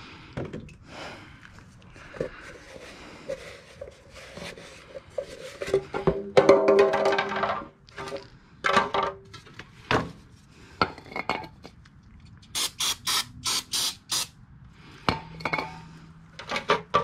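Intermittent clinks, knocks and scrapes of tools and containers being handled, with a quick run of sharp rattling strokes about two-thirds of the way through.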